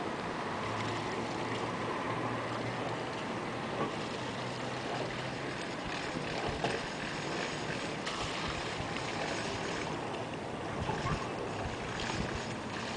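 Steady harbor ambience: a boat engine running with a low steady hum under a haze of wind and water noise, with a few small knocks.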